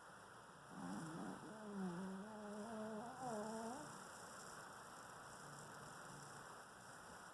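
A sleeper's drawn-out, wavering vocal moan lasting about three seconds and rising in pitch at the end, over a faint steady hiss.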